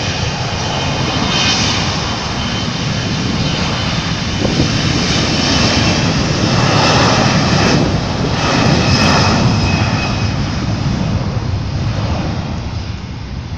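Jet airliner passing low overhead on final approach: loud engine noise with a high whine that builds to a peak about halfway through and then fades away.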